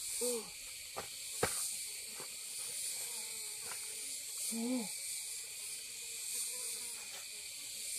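Steady high-pitched buzzing of forest insects, with a short low rising-and-falling call twice, near the start and again just before five seconds in, and a few light clicks and knocks from hands working in wet mud.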